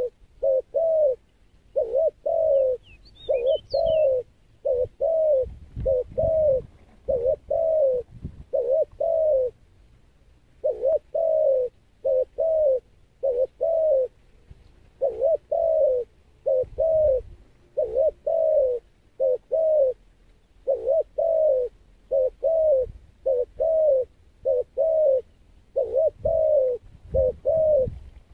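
Spotted dove cooing over and over in short phrases of two or three coos, with a brief pause about ten seconds in.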